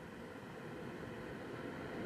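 Electric motor and propeller of a small RC plane humming under a steady hiss, growing gradually louder.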